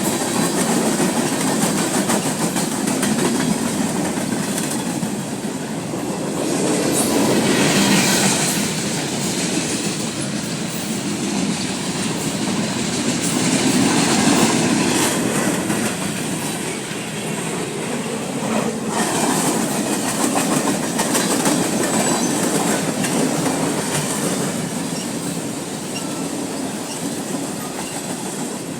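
A CSX freight train's cars rolling past: a steady rumble of wheels on rail with a clickety-clack over the rail joints, swelling and easing as the cars go by.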